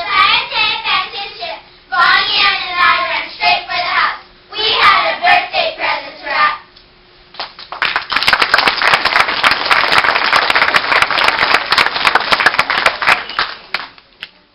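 A group of children's voices in unison for about the first six seconds, the end of a verse-choir piece, then after a brief pause an audience applauds for about six seconds, fading out at the end.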